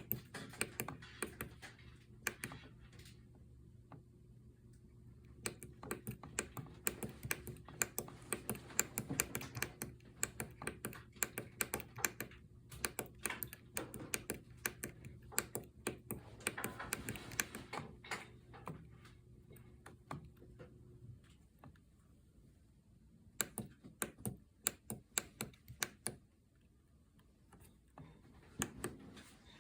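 Rapid, irregular clicking of a key or button being pressed over and over, in bursts separated by short pauses. A faint steady hum runs underneath and stops about two-thirds of the way through.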